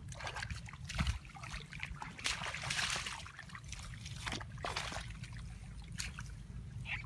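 Shallow muddy rice-paddy water splashing and sloshing in irregular bursts as hands grope through it and feet wade in the wet stubble, over a low steady rumble.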